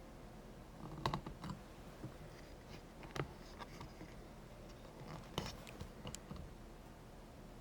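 Scattered light clicks and taps, a few irregular sharp ticks over a faint steady background.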